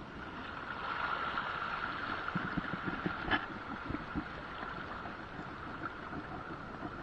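Water lapping against a small boat's hull in light wind, with a few soft knocks and one sharp click a little past the middle.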